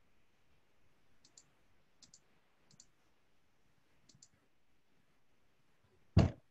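Computer mouse clicking: four faint double clicks, press and release, spread a second or so apart. Near the end comes a single loud short thump.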